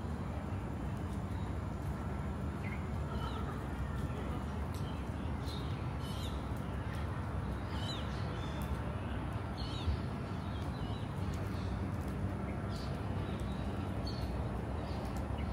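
Outdoor ambience of birds giving short scattered calls over a steady low rumble.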